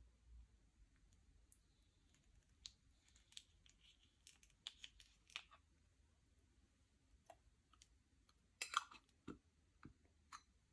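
Slime being squished and worked by hand, giving faint scattered clicks and small pops, with a louder quick cluster of crackles about three-quarters of the way through.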